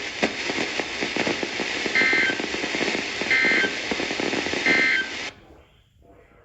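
Crackling radio static carrying three short buzzy EAS end-of-message data bursts, about a second apart, that close the severe thunderstorm warning. The broadcast audio cuts off about five seconds in, leaving faint hiss with a few clicks.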